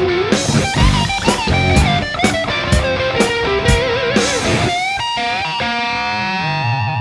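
Overdriven electric guitar lead through an Orange Rockreverb 50 tube amp head, recorded from the load box's line out with speaker simulation. A run of picked notes with bends, then a long sustained note with wide vibrato from about five seconds in.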